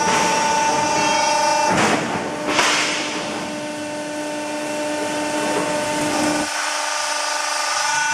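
Steel door panel roll forming machine running, with a steady machine hum and whine that holds a few fixed tones. Two short rushing noises come about two seconds in, and the low rumble drops out for a moment near the end.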